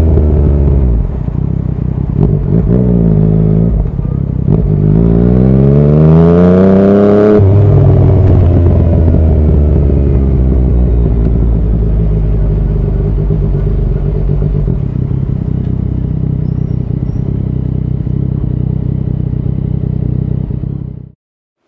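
Yamaha MT-09's three-cylinder engine through an Akrapovič exhaust while riding: the note falls off, rises briefly, then climbs steeply under throttle for about three seconds before dropping suddenly at a gear change. It then holds a steady cruising note and cuts off abruptly near the end.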